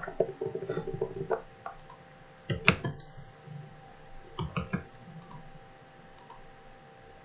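Computer mouse clicking a few times at irregular moments, the loudest click a little under three seconds in, over a faint steady electrical hum.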